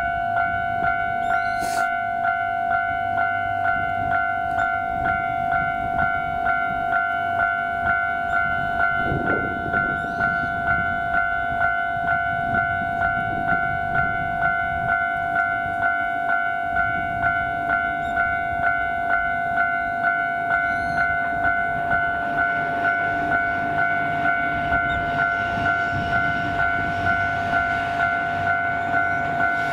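Electronic railway level-crossing warning bell ringing in an even, repeating rhythm. In the last several seconds the rumble of an approaching EF65 electric locomotive hauling 14-series passenger cars grows underneath it.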